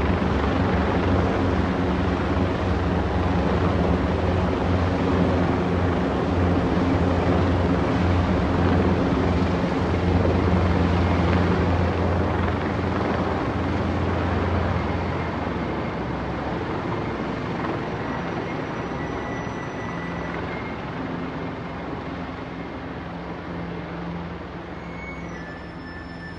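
Several military helicopters flying overhead, a steady drone of rotors and engines with a low hum, fading gradually over the second half as they move off.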